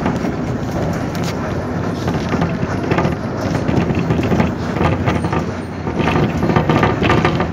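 Engine and road noise of a moving vehicle heard from inside it: a steady rumble with a few short knocks.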